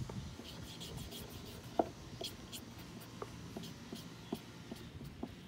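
Hands rubbing and tapping over a surfboard's surface as it is checked for dings: a scatter of small ticks and scrapes, the sharpest a little under two seconds in, over a faint steady hum.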